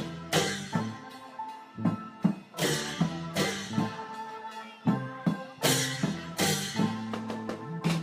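Isan klong yao long-drum ensemble playing a driving rhythm: pitched, ringing drum strokes with bright cymbal crashes washing over the hits.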